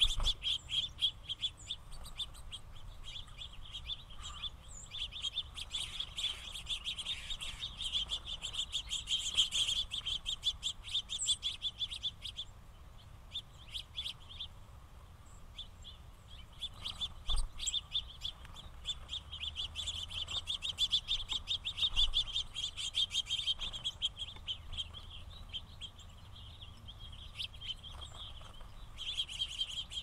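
A flock of house finches chirping in a dense, rapid chatter that thins out a few times.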